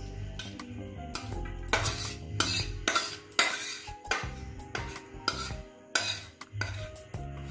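Metal spatula scraping and knocking against a metal kadai and steel plate as thick, crumbly kalakand mixture is scraped out of the pan, in a run of scrapes and clinks, loudest in the first half. Background music plays underneath.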